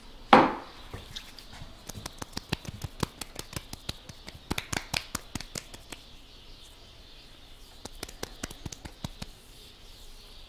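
Hands slapping and patting aftershave onto a freshly shaved face: one loud slap just after the start, then quick light pats in clusters over the following seconds.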